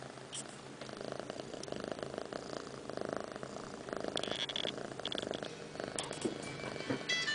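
White kitten purring close to the microphone: a rapid, even rumble that grows about a second in and swells and eases with each breath.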